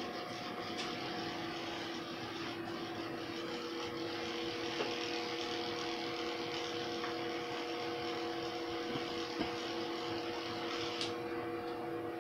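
Corded electric pet hair clipper running with a steady hum as it shears through a dog's long coat.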